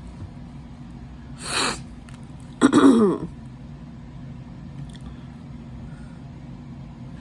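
A person sneezes once: a sharp in-breath, then a loud sneeze with a falling pitch about three seconds in.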